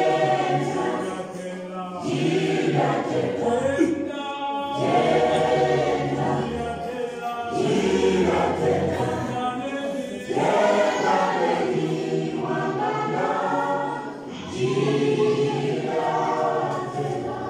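A mixed choir of young men's and women's voices singing a gospel song together, in phrases that swell and fall every two to three seconds.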